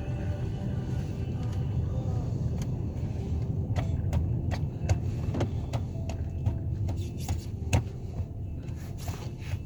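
A car driving on a snow-covered road, heard from inside the cabin: a steady low road and engine rumble, with scattered sharp clicks and knocks in the second half.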